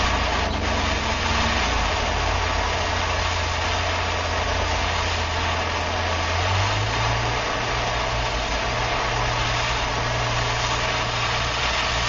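Handheld gas torch burning with a steady hiss over a low rumble, its flame playing on a steel knife blade to temper the spine while the edge is kept cool in a wet rag. The rumble steps slightly higher about halfway through.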